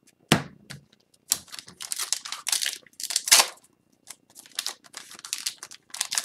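Plastic wrapper of an Upper Deck hockey card pack crinkling and tearing as it is worked open by hand, in quick irregular crackly bursts, with a soft knock near the start as cards are set down.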